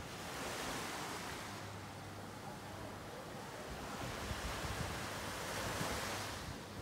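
Small waves washing up on a sandy beach, swelling twice and easing back, with wind rumbling on the microphone.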